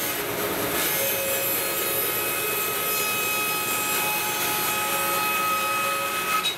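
Bandsaw ripping a 30 mm strip off a glued-up panel of strips of different woods: a steady sawing noise with a thin, even whine as the panel is fed through the blade.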